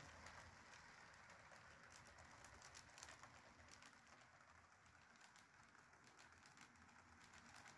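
Faint running of an HO scale Bachmann EMD F7 model locomotive on its track, pulling a string of freight cars: a low hum with scattered light clicks.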